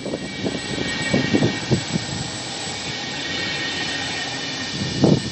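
Regional train of Vivalto double-deck coaches rolling past close by: a steady rumble of steel wheels on the rails, with a few wheel knocks over rail joints and a faint steady whine.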